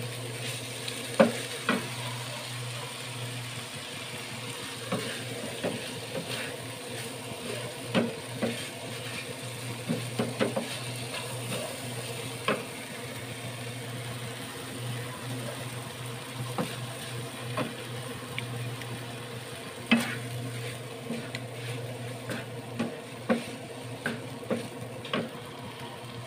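Wooden spatula stirring and scraping chopped chilies, garlic and ginger frying in oil in a nonstick pan, with irregular knocks of the spatula against the pan over a steady sizzle.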